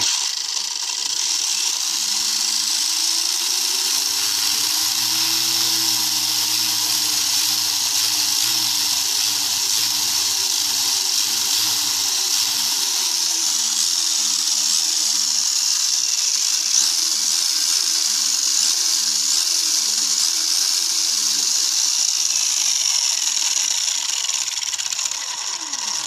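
Traxxas Rustler's 2200kV brushless motor and drivetrain spinning freely on a stand at quarter throttle, wheels in the air: a steady high-pitched whine with a lower wavering tone underneath. It cuts off suddenly near the end.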